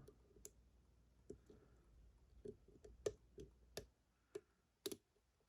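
Faint, scattered small metallic clicks of a steel hook pick probing and lifting the pins inside a lock, about eight over a few seconds, a few louder ones in the second half.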